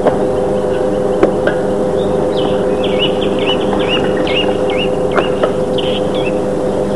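Small birds chirping in quick repeated hooked notes, over a steady hum, with a couple of light clicks.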